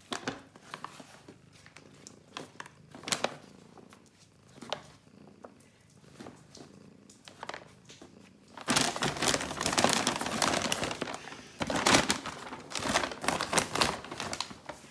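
Paper carrier bag crinkling and rattling as a kitten wriggles and paws around inside it: scattered crackles at first, then a long spell of loud, continuous rustling from a little past the middle until near the end.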